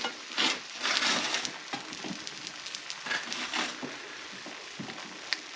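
Two eggs sizzling in a cast-iron skillet: a steady hiss with irregular crackles and pops. The burner is off, and the pan's stored heat keeps frying the bottoms of the eggs.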